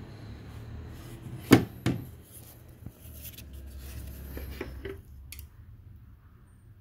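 Sharp metallic knocks and clinks as the aluminium oil filter housing, just unbolted from the engine block, is lifted out and handled. The two loudest knocks come about a second and a half in, close together, followed by lighter clicks and rustling that fade out near the end.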